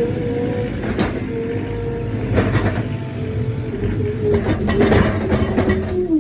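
Skid-steer loader engine running with a steady hum that dips in pitch near the end, with several sharp metallic clanks, most of them in a cluster in the second half.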